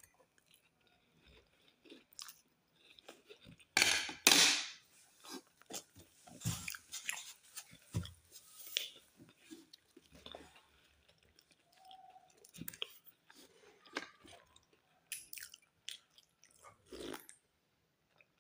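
A person chewing and crunching crusty bread close to the microphone, with a run of short, wet mouth clicks. Two loud crunches about four seconds in are the loudest sounds.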